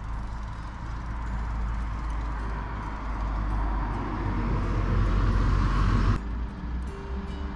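Outdoor noise with wind rumbling on the microphone and a road vehicle growing steadily louder, cut off suddenly about six seconds in. After the cut, faint steady tones.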